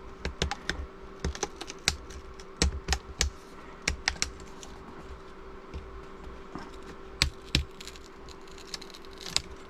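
Sharp, irregular plastic clicks and snaps as a Chromebook's screen bezel is pried away from the display, its clips letting go. The clicks come thick in the first few seconds, then thin out to a few more later on.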